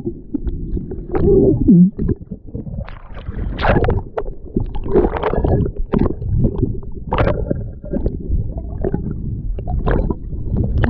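Muffled rumbling and gurgling of surf water heard with the microphone held underwater, with irregular rushing gushes.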